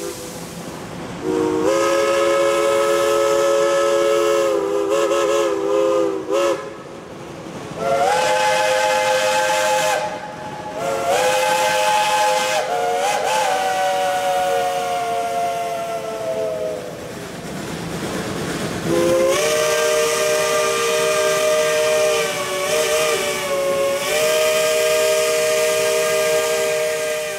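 Steam locomotive chime whistle blowing four long blasts, several notes sounding together as a chord, the pitch wavering now and then, over a hiss of steam.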